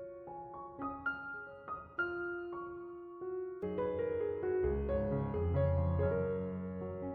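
Background piano music: single soft notes at first, then fuller chords with a bass line from about halfway in.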